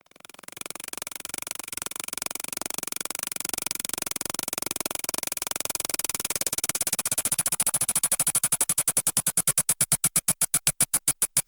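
Synthesizer-like buzzing that breaks into distinct pulses and slows steadily, reaching about four or five pulses a second near the end before cutting off suddenly.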